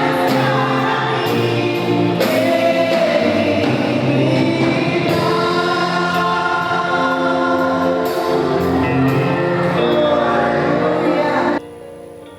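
Gospel choir singing a worship song with instrumental accompaniment; the music cuts off abruptly near the end.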